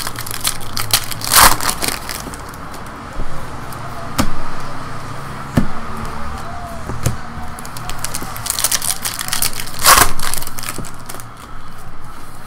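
Baseball trading cards being handled and flipped through by hand: cards sliding against each other with scattered clicks, and two louder rustling bursts, one about a second and a half in and a longer one near nine to ten seconds in.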